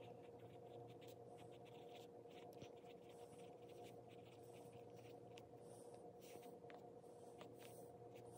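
Faint scratching of a pencil writing on a lined notebook page, in short irregular strokes, over a low steady hum.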